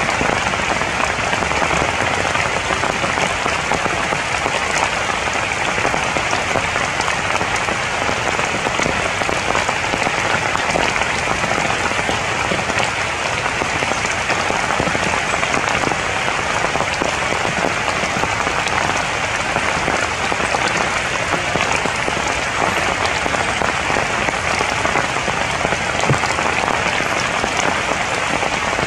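Steady rain falling on the broad leaves of a tree canopy: an even hiss with faint scattered drop ticks.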